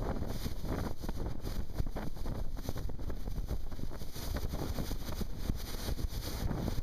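Wind buffeting the microphone on a boat underway across choppy water, over a steady low rumble with irregular gusty thumps.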